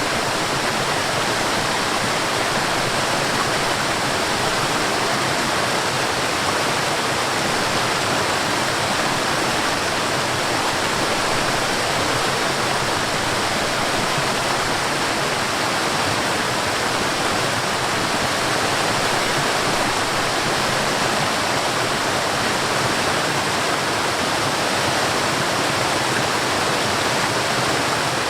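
Forest waterfall: water falling and rushing in a steady, unbroken hiss.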